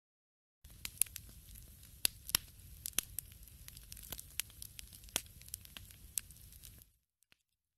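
Wood fire crackling: irregular sharp pops and snaps over a low hiss. It starts about half a second in and cuts off suddenly near the end.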